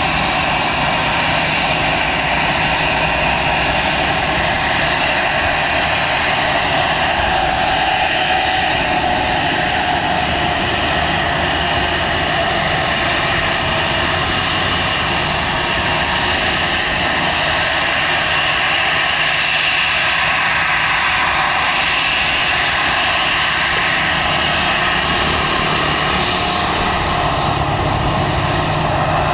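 Airliner engines running loud and steady: a broad rush with a high steady whine over it.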